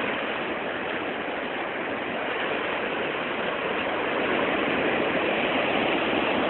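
Sea waves breaking and washing up a sandy beach: a steady rushing noise that builds slightly.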